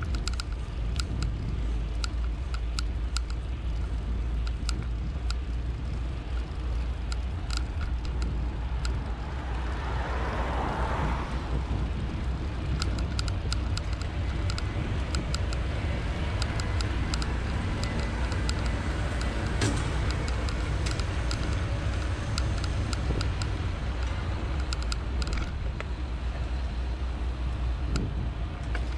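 City traffic heard from a moving bicycle: a steady low rumble of wind and road noise, with frequent small clicks and rattles throughout and a louder swell, like a passing vehicle, about ten seconds in.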